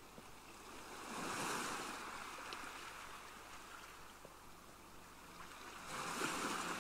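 Sea waves washing in: a rushing surf that swells about a second in, ebbs, and swells again near the end.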